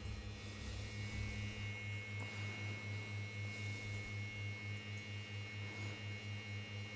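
Concentric vibration massage device running on a trigger point, giving a steady low electric hum that pulses about four times a second.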